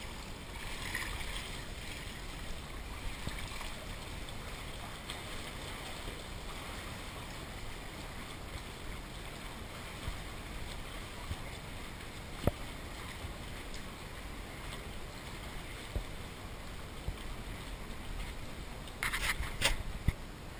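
Steady rushing background noise with a few faint sharp knocks, and a short louder rustle near the end.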